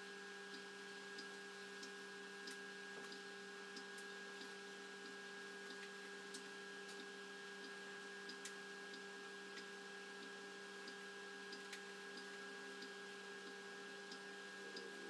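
Steady electrical hum made of several constant tones, with faint, regular ticks about three every two seconds.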